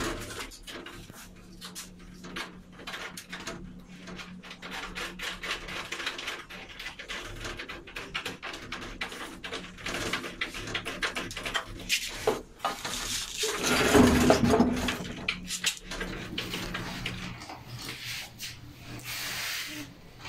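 Hands working an aluminium sliding-door track into alignment: irregular small taps, clicks and rubbing of metal, with a louder stretch of handling noise about fourteen seconds in and a faint steady hum underneath.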